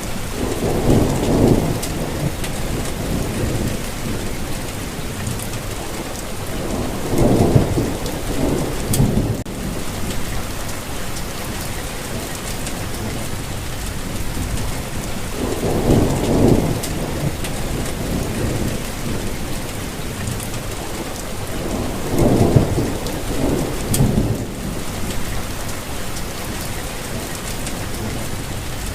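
Steady rainfall hissing evenly, with several low rumbles that swell and fade every few seconds.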